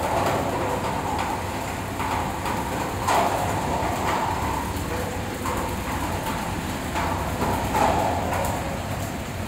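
Plastic raffia cutting machine running, chopping PP raffia strands: a steady low hum with irregular louder surges of noise every second or two as the cut fibres are thrown out.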